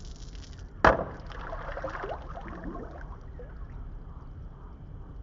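A Diwali rocket's charge exploding with one sharp bang about a second in, followed by about two seconds of crackling and splashing water. The rocket blew up after travelling only a short way.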